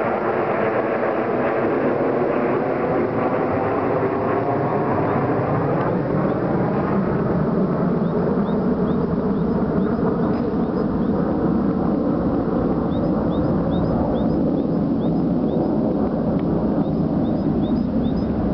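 A formation of jet fighters flies over with a loud jet engine roar. Its tones slide downward in pitch over the first several seconds as the aircraft pass, then it settles into a steady, deeper rumble as they move away.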